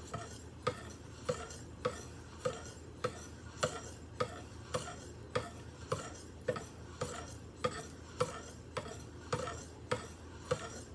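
0.6-micron ceramic sharpening stones on a guided-rod knife sharpener being drawn across a Spyderco Rock Salt blade's edge with very light pressure. Each pass gives a short, light tick, a little under two a second, in an even rhythm.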